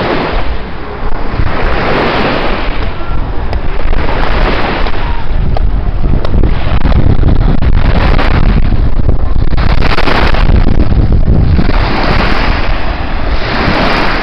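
Wind buffeting the microphone with a loud rumble, over gentle surf washing on a sandy shore; the hiss swells and fades every few seconds.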